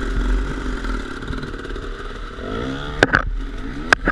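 Dirt bike engine running steadily close by while a second dirt bike revs to cross a flooded creek, its pitch rising then falling a little over halfway through. A few sharp knocks come near the end.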